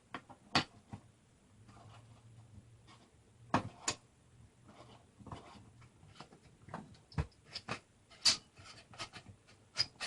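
Irregular light metallic clicks and taps as a Remington 870 pump shotgun's magazine extension is screwed onto the magazine tube, clicking as it turns until it is tight.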